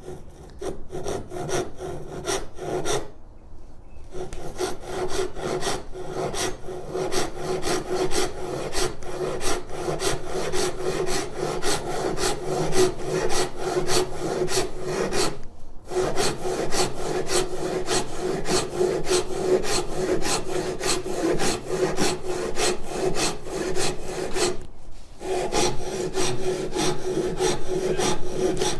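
Japanese hand saw cutting diagonally through a piece of timber, rasping back and forth at about two to three strokes a second. It stops briefly three times: about three seconds in, around the middle, and a few seconds before the end.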